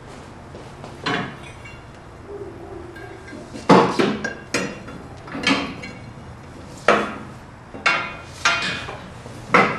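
A quarter-inch steel backing plate clanking and knocking against the steel frame tube as it is worked into place: about nine sharp metallic knocks at uneven intervals, each ringing briefly, the loudest a cluster around four seconds in.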